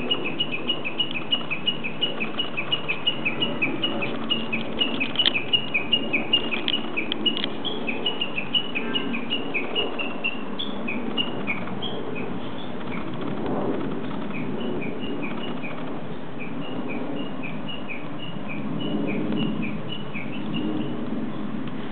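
A Japanese bush warbler calling in a fast, even run of short high chirps, about four a second. The run breaks off about ten seconds in and resumes a few seconds later, over a low steady background rumble.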